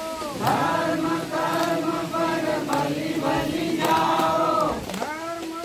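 A group of voices singing a devotional chant together, holding long notes. Near the end, one voice carries on alone. Short sharp clicks sound now and then over the singing.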